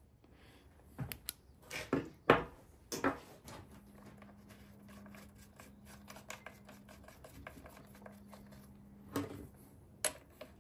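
Scattered sharp clicks and knocks of handling, the loudest a little over two seconds in, with a faint steady hum through the middle.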